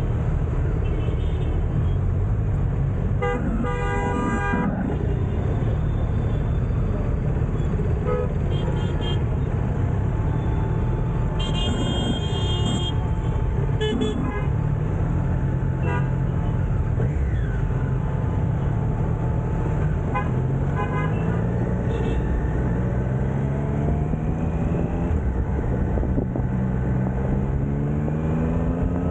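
City traffic with horns honking: two longer honks a few seconds in and around twelve seconds in, plus several short toots, over the steady low running of a Triumph Street Triple RS's three-cylinder engine. Over the last several seconds the engine's pitch rises again and again as the bike accelerates.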